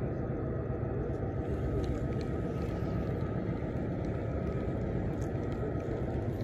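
A steady low rumble with a faint steady hum over it.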